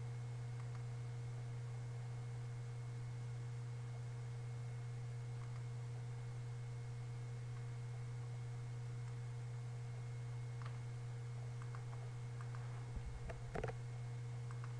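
Steady low electrical hum from the recording chain, with a few faint clicks of a computer mouse and keyboard near the end.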